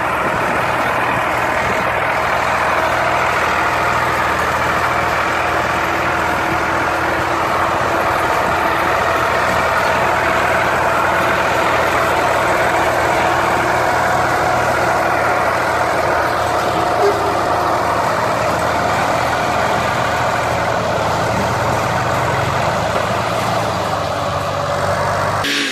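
Massey Ferguson tractor's diesel engine running steadily and loudly, labouring under the weight of a trolley heaped with bricks that it cannot pull away.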